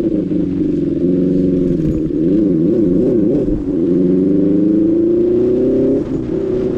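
Benelli 600i inline-four engine heard from the rider's seat while riding, its pitch rising and falling with the throttle. The pitch warbles quickly back and forth about two and a half seconds in, climbs steadily from about four seconds, and dips briefly near six seconds.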